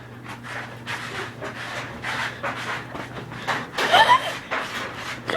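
Puppy panting in quick, noisy huffs while playing, with a brief rising squeak about four seconds in.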